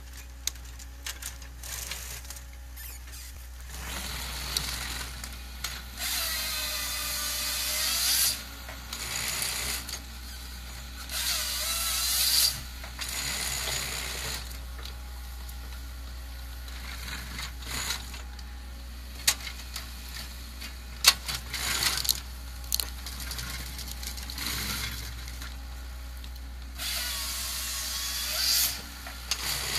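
The chain saw on a forestry machine's processing head cuts logs three times, about two seconds each, its pitch dipping under load and then recovering. Between cuts come clanks and clicks of the machine handling the timber over a steady low engine hum.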